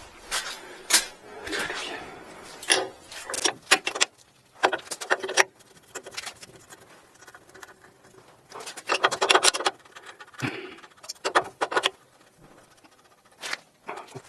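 Metal tools and guide-shoe parts clinking and tapping in irregular clusters of quick strikes, as worn liners are fitted into an elevator's guide shoes.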